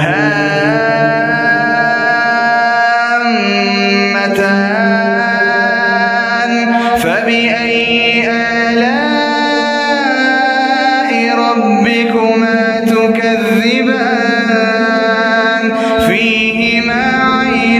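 Quranic recitation by a solo male voice in slow, melodic tajweed style, drawing out long held notes that slide up and down in pitch, with short breaths between phrases.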